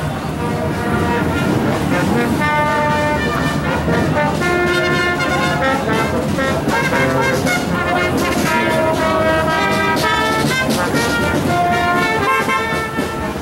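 Brass band music: horns play a melody of held notes over a steady drum beat.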